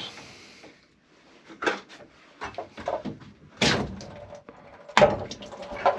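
Several sharp knocks and clicks of tools and plumbing parts being handled at the water heater's pipework, the loudest a little past the middle.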